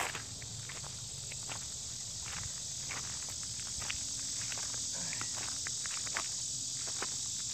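A steady, high-pitched chorus of insects, in the manner of crickets, with a few faint scattered clicks of footsteps and handling on the grass.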